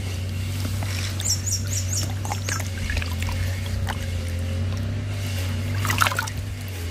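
Hand sloshing and splashing through the shallow water of a small spring pool while groping for crayfish, with a louder splash about six seconds in. A bird chirps four times in quick succession about a second in, over a steady low hum.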